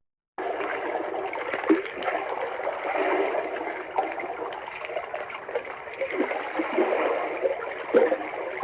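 Water running and gurgling, with short bubbling plops here and there; it starts about half a second in.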